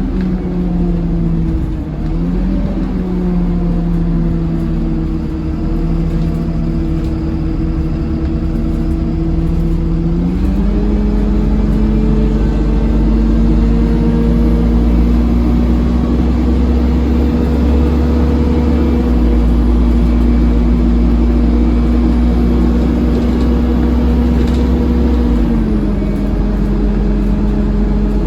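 Dennis Dart SLF bus driveline with an Allison 2100 four-speed automatic, heard onboard while driving: a loud, steady, hoover-like droning whine. Its pitch dips and recovers about two seconds in, steps up about ten seconds in, and steps back down near the end.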